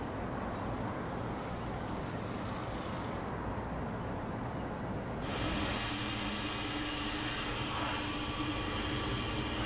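A low, quiet background hum, then about five seconds in a shower's water spray cuts in abruptly and runs loud and steady.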